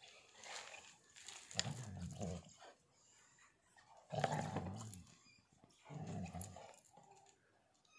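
A dog growling low in three bursts of about a second each, during rough play between two dogs.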